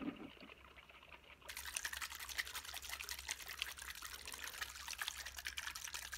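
Water trickling steadily into a soil test kit's tube, starting about one and a half seconds in, after a brief handling knock right at the start.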